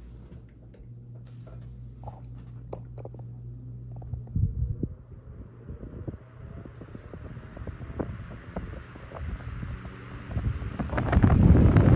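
Emerson 12-inch 77646-AK table fan starting up. A low electric motor hum comes first. A thump follows about four seconds in. Then the air noise rises steadily in pitch as the blades spin up, and the airflow starts buffeting the microphone near the end.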